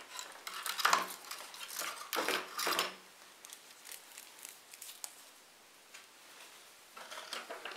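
Tools and small objects handled on a workbench: a few short clinks and rustles in the first three seconds, a quieter stretch, then more rustling near the end.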